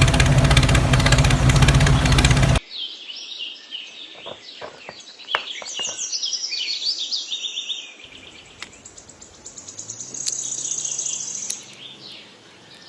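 A small engine runs loudly, then cuts off abruptly about two and a half seconds in, leaving birds chirping and trilling.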